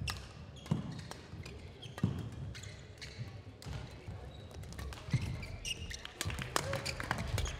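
Badminton players' footsteps and shoe squeaks on an indoor court, with scattered thuds at first and a quick run of sharp knocks and hits in the last second or so as a rally gets going.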